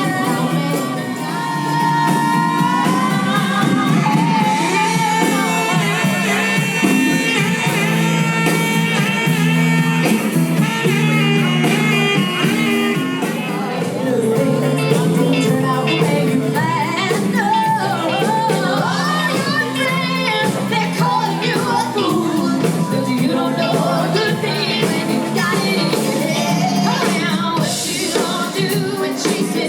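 Yacht rock band playing a song with sung vocals over the instruments.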